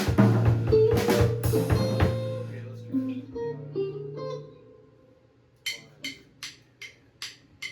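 Band rehearsing: drum kit, guitar and held keyboard or bass notes playing, stopping about four and a half seconds in and ringing out. About a second later, a run of evenly spaced sharp clicks, about two and a half a second, counting in the next take.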